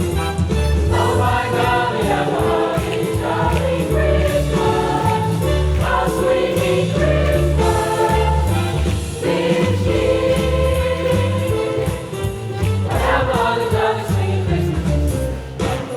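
Student choir singing a holiday song over instrumental accompaniment with a moving bass line.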